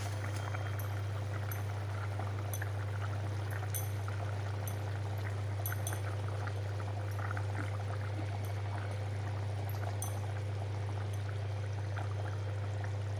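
Fish curry boiling in a pan on the stove: many small bubbling pops and crackles over a steady low hum.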